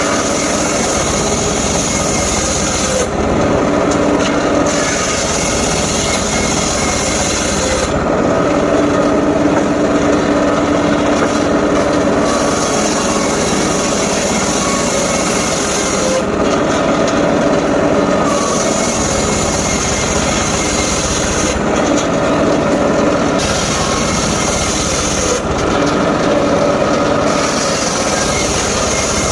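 Mobile circular sawmill running steadily while its blade rips through logs, with a high hiss from the cut that comes and goes every two to four seconds as the blade enters and leaves the wood.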